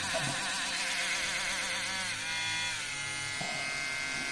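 Mini cordless rotary tool's small electric motor running with a buzzing whine while drilling. Its pitch wavers as the bit loads, and it dips and recovers about two seconds in.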